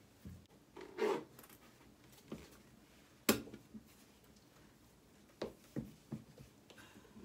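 Boots being handled and set down on a shoe rack: a few separate knocks and scuffs, the sharpest a little over three seconds in, with a scuff about a second in and three lighter knocks later on.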